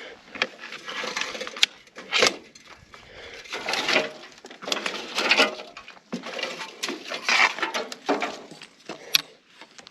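Rustling and scraping as a person moves through brush and debris, in short bursts, with a few sharp clicks and knocks.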